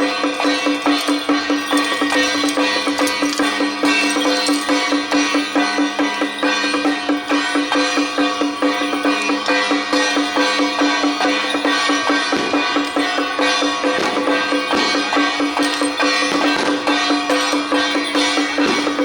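Temple procession music: drums and percussion beating rapidly under a sustained, steady high tone, with some sharper knocks in the last few seconds.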